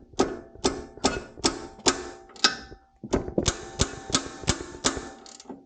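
Ratchet wrench with a 16 mm socket turning a tight tie rod end nut, clicking in quick metallic strokes about two or three times a second, in two runs with a short pause about halfway.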